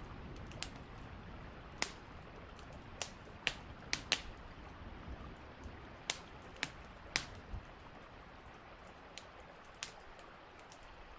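Steady light rain with irregular sharp clicks and pops, about a dozen of them, scattered at uneven gaps; the loudest comes about four seconds in.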